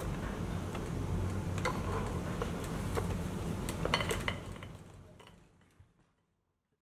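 Light metallic clinks, ticks and clicks from small objects on an interactive collage board being handled, over a steady low hum. The sound fades out a little past the middle.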